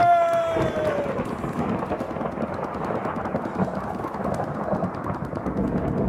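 A man's long, held scream, sliding slightly down in pitch, ends about a second in, as a stormy rumble of thunder and rain comes in and carries on steadily, a storm sound effect in a stage drama.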